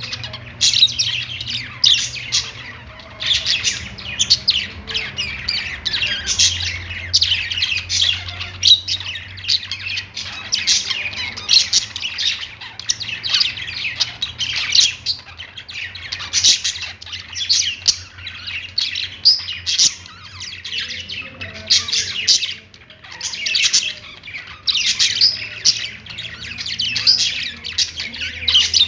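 Pet budgerigars (budgies) chirping and warbling continuously in a dense run of quick, high, overlapping chirps, over a faint low steady hum.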